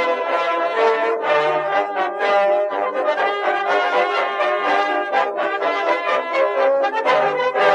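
Brass band music, trombones and trumpets playing a lively tune.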